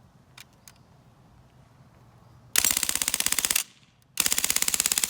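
Umarex Legends MP40 CO2 BB submachine gun firing two full-auto bursts of rapid blowback shots, the first about one second long and the second longer, after two faint clicks. The gun is malfunctioning, which the shooter takes for it firing only the first BB and then just air while the rest jam.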